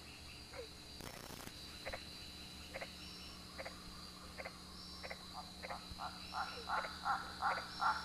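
Frogs calling: faint, short croaking notes, a few spaced apart at first, then quicker and louder over the last couple of seconds, over a faint steady high-pitched whine.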